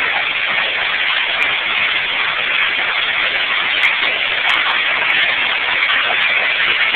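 Heavy hail and rain pelting down in a severe thunderstorm: a loud, steady, dense hiss with a few sharp ticks of hailstones striking.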